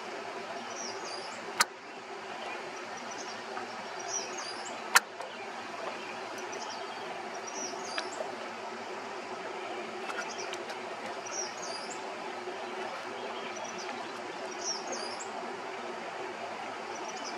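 A bird singing the same short high phrase about every two seconds over a steady background hum, with two sharp clicks, about one and a half and five seconds in.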